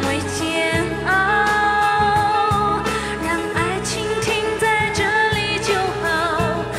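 Live pop song blending Chinese and Western music: a voice holds long, wavering notes over a band with a steady bass line.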